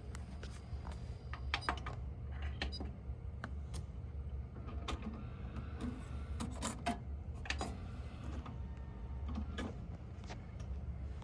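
Irregular light clicks and short mechanical clatters over a steady low hum.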